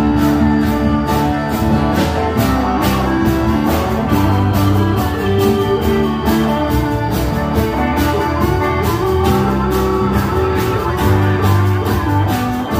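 Live rock band playing an instrumental passage with no singing: electric guitars and keyboard over a steady beat.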